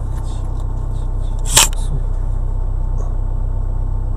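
Vehicle engine idling steadily while stopped, heard from inside the cab as a low, even rumble. A single sharp click sounds about a second and a half in.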